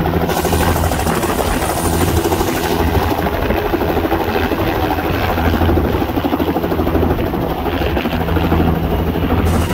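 Helicopter running: a loud, steady wash of rotor and engine noise with a constant low drone.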